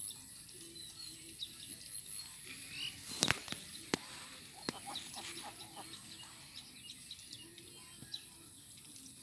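Domestic ducks dabbling and pecking in shallow water and mud among wet grass: a scatter of small wet clicks and ticks, with a sharper click about three seconds in and another a second later.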